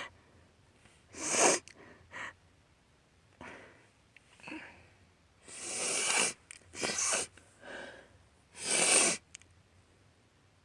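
A woman sneezing loudly several times from allergies, with shorter sniffles and sharp breaths between the sneezes.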